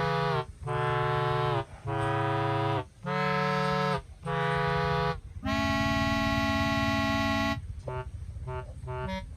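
Background music: held reedy chords of about a second each with short breaks between them, one longer chord about halfway, then a run of short quick notes near the end.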